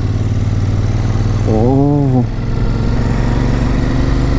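Motorcycle engine running steadily under way. About a second and a half in there is a short vocal sound that rises and falls in pitch.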